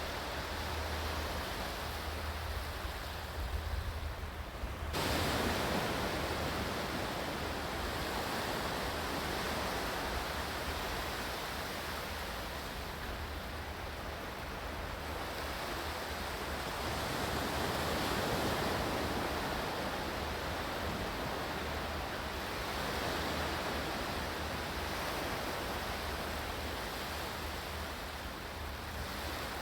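Continuous rushing water that cuts abruptly about five seconds in to a brighter, fuller wash, which swells and eases slowly every few seconds, as ocean surf does.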